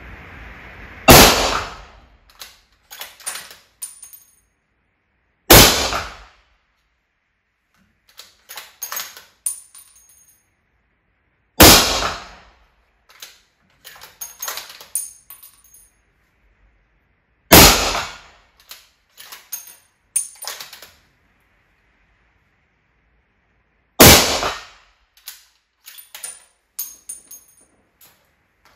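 Five shots from a Bergara B14 HMR bolt-action rifle in .300 Win Mag fitted with a sound moderator, about five to six seconds apart. Each shot is followed by a quick run of metallic clicks as the bolt is worked to eject the case and feed the next round.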